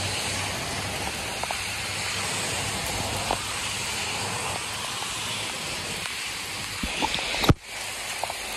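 Heavy rain falling steadily, an even hiss, with a few small ticks and one sharp knock about seven and a half seconds in.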